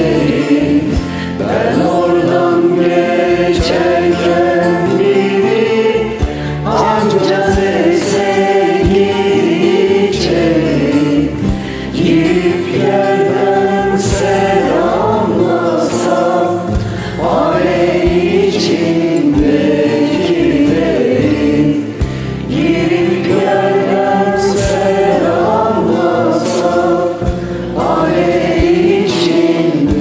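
Several voices singing a Turkish song together over a karaoke backing track.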